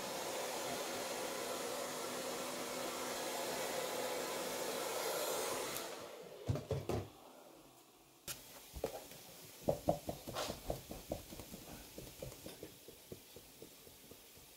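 Hand-held hair dryer blowing steadily, switched off about six seconds in. A couple of thumps follow, then a run of light, irregular knocks and handling sounds.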